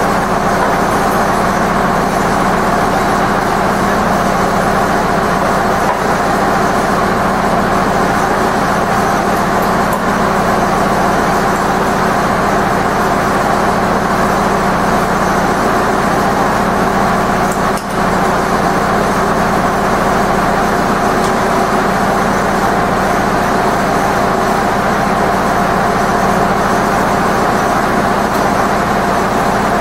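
Zetor 7245 tractor's four-cylinder diesel engine idling steadily.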